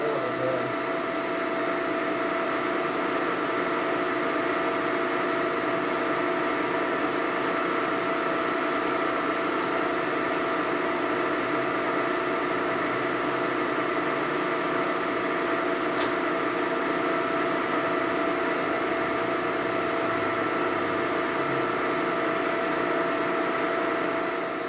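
Lagun vertical milling machine running steadily, a hum and whine of several steady tones over a mechanical hiss, as a flattening pass is taken across an aluminum panhead engine part. The highest hiss thins out about two-thirds of the way through, and the machine sound drops at the very end.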